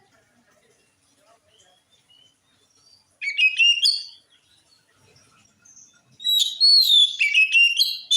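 Oriental magpie-robin singing: a loud, quick phrase of varied whistled notes about three seconds in, then a longer one from about six seconds in. Faint short calls come between the phrases.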